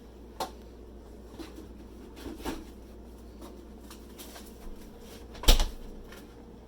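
Kitchen handling noises during cooking: a few light clicks and knocks, then one louder thump about five and a half seconds in, over a low steady hum.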